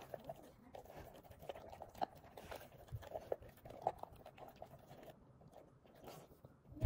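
Great Pyrenees puppy crunching and chewing dry kibble from a stainless steel bowl, in irregular crunches.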